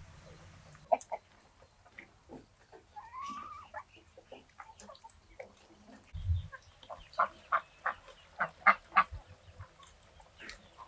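Farmyard fowl calling. A short rising call comes about three seconds in, then a low thump, then a quick run of short, sharp honking calls at about three a second in the second half.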